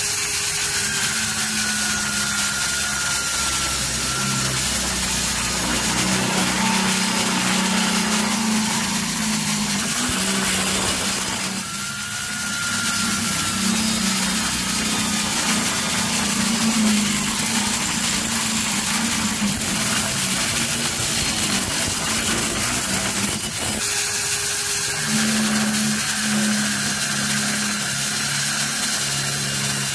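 Electric power tool running steadily under load, a constant motor hum and whine with dense grinding noise, easing off briefly about twelve seconds in and again near the 24-second mark.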